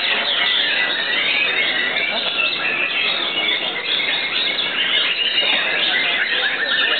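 Many caged white-rumped shamas (murai batu) singing at once: a dense, steady chorus of overlapping whistles and chirps.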